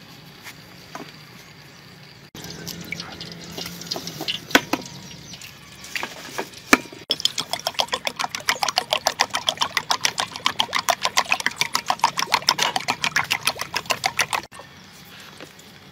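A gloved hand squelching food around in a wet batter in a bowl. Irregular squishes at first, then from about seven seconds in a fast, even squelching about five times a second that cuts off suddenly.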